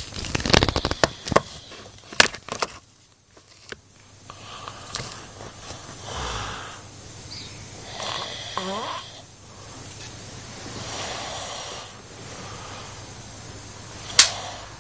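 A man snoring in his sleep: rattling snores through the first second and a half, then slower, softer snoring breaths, with one sharp click near the end. He has an anti-snoring nose device on, and it is not stopping the snoring.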